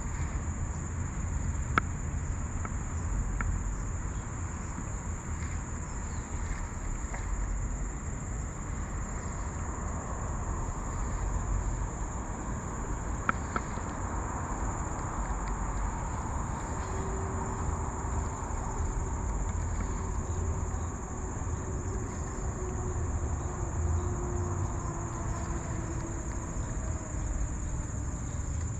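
A steady chorus of insects, an even high-pitched drone that never lets up, over a low rumble, with a few sharp clicks.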